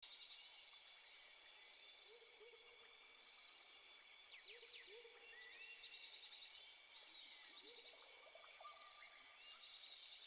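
Faint night ambience: insects trilling steadily, one of them pulsing about twice a second, with a few faint short chirping calls over it.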